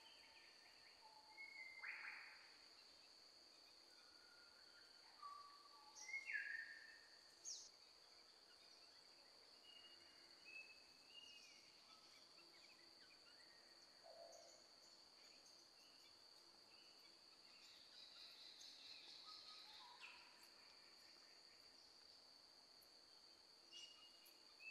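Faint outdoor ambience: scattered short bird chirps and calls over a steady, thin, high-pitched whine.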